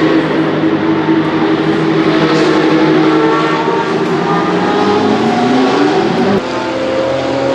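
Ferrari 488 GT3 EVO race car's twin-turbo V8 running at racing speed, with more than one engine heard at once. A few seconds in, one engine's pitch rises steadily as it accelerates, then falls abruptly about six seconds in.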